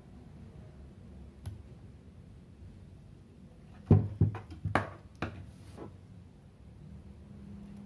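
Several quick knocks and clicks of a Hubsan Zino drone's plastic body being handled and turned against a desk, bunched together about four seconds in, the first the loudest.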